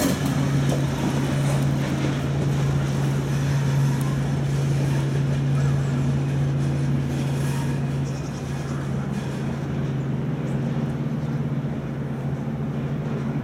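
Passenger train coaches rolling past on the rails, the wheel noise thinning out as the train draws away. A steady low hum runs underneath, and the sound eases slightly about eight seconds in.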